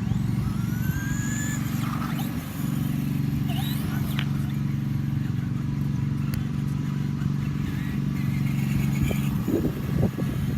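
Simulated engine rumble from a Traxxas Slash RC truck's onboard sound-effects speaker, running steadily, with a few short rising whines over it.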